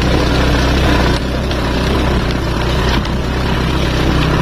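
A motor vehicle engine running steadily, with a constant rush of road and wind noise, as heard while travelling along a road.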